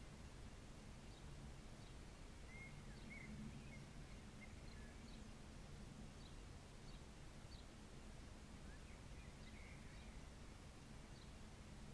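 Faint outdoor ambience: scattered short bird chirps over a low, steady background hum.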